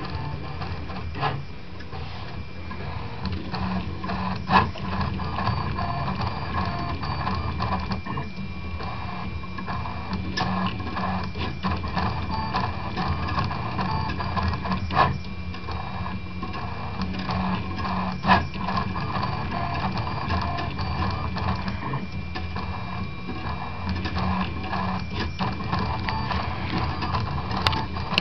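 A RepRap Prusa Mendel 2-style 3D printer printing a calibration cube: its stepper motors buzz and whine continuously as the axes move, with a steady high tone and a few sharp clicks here and there.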